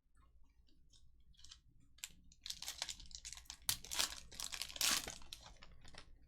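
Trading cards and a foil card-pack wrapper being handled: a run of quick crinkling and rustling that grows busier partway through.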